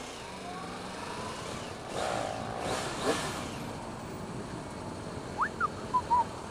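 2015 Yamaha R1's crossplane inline-four engine running at low speed through stopped traffic, its pitch rising as it is throttled on about two seconds in, over road and wind noise. A few short, high chirps come near the end.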